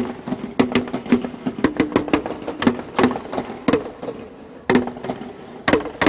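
A pair of bongos struck with drumsticks in a quick, uneven rhythm, the two drum pitches ringing out and echoing inside a huge concrete cooling tower. The playing pauses briefly about four seconds in.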